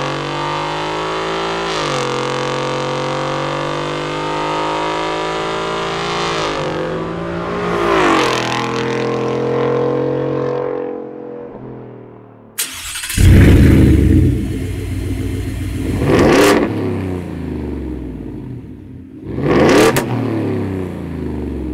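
Ford F-150's 5.0L Coyote V8 heard through its exhaust. It runs steadily for about eleven seconds, with revs rising and falling once about eight seconds in, then fades. Just past halfway it comes back suddenly and loud with a deep rumble, and two quick throttle blips follow near the end.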